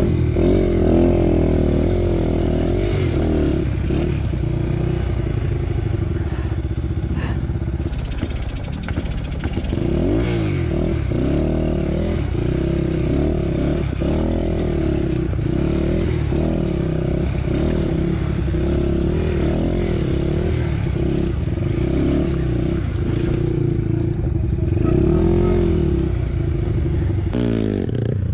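Dirt bike engine revving up and down repeatedly, its pitch rising and falling over and over as the throttle is worked.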